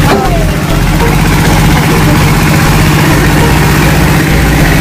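Excavator's diesel engine idling steadily.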